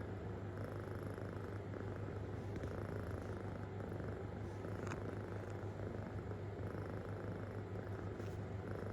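Kitten purring deeply and without a break: a steady low rumble.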